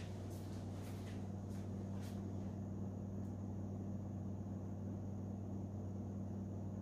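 Steady low hum with room tone, with a few faint clicks in the first two seconds.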